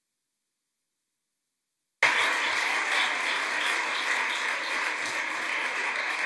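Silence, then about two seconds in, the applause of a large seated audience cuts in suddenly: many people clapping steadily.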